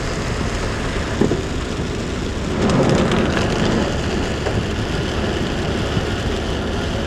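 Car driving along a road in the rain: a steady low vehicle rumble under the hiss of rain, swelling louder about three seconds in.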